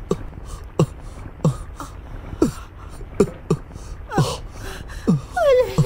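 A woman sobbing: short, catching sobs that fall in pitch, roughly one every half second, breaking into two longer falling wails near the end.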